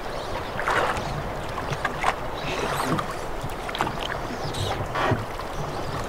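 River water running and lapping around a drift boat under way, with a few short splashes about one, two and five seconds in.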